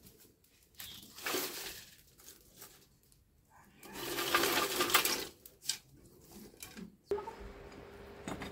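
Dry twigs and sticks rustling and snapping as they are handled and pushed into a small wood fire, in two spells about a second long with a few clicks between. About seven seconds in, a steady low hum starts abruptly.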